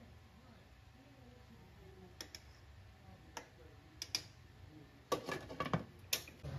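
Light metallic clicks of a fork against a stainless steel pot while testing boiled potatoes for doneness, then a quick run of louder clatters near the end as a glass lid is set on the pot.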